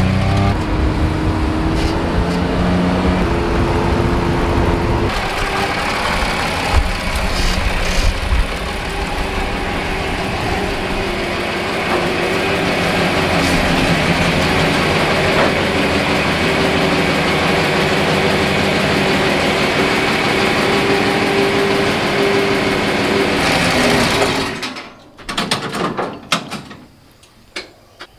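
John Deere 4020's six-cylinder diesel engine running steadily as the tractor is driven, then shut off suddenly about 25 seconds in. A few clicks and knocks follow.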